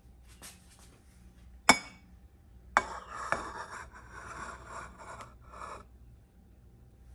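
A sharp knock about a second and a half in, then a second knock and about three seconds of scraping and rubbing as a bamboo cutting board is set down and pushed into place on a silicone baking mat over a glass-top stove.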